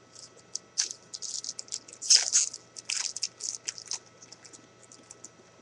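Plastic wrapper of a 2013 Bowman football card pack being torn open and crumpled: a run of quick crinkling crackles, loudest about two seconds in, thinning to a few scattered crackles near the end.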